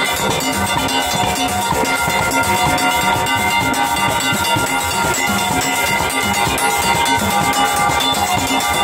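Steel band playing live: many steelpans sounding together over a drum kit with cymbals and a metal scraper keeping the rhythm.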